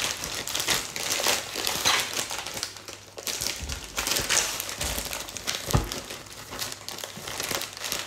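Plastic courier mailer bag crinkling and crackling as it is handled and slit open with a knife, with one dull thump about two-thirds of the way through.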